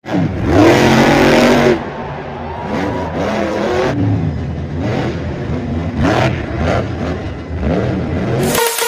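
El Toro Loco monster truck's supercharged V8 revving hard: a very loud full-throttle burst in the first second and a half, then the engine note repeatedly climbing and falling as the driver works the throttle over the dirt jumps.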